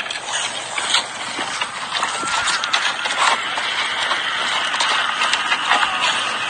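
A horse's hooves stepping over stony, gravelly ground, with scattered crunches and knocks over a steady hiss.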